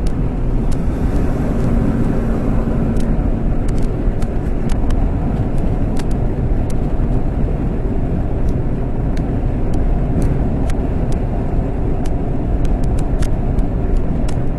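Steady road, wind and engine noise inside a vehicle's cabin while driving at highway speed, with light scattered ticks.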